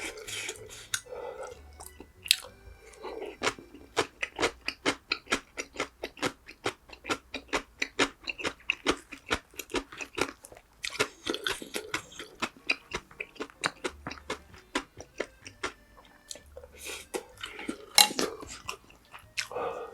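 Close-miked chewing of food, with quick, regular wet clicks of the mouth and a few louder bites.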